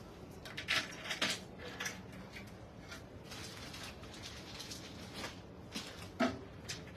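Irregular handling noises from handbags being moved about inside a glass display cabinet: scattered clicks, knocks and rustles, a cluster about a second in and another near the end, over a steady low room hum.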